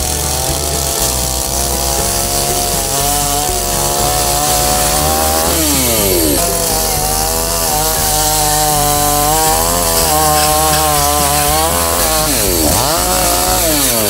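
Petrol chainsaw running at high revs, cutting through a bundle of hazel branches. Its engine pitch dips sharply and climbs back up twice, about six seconds in and again near the end.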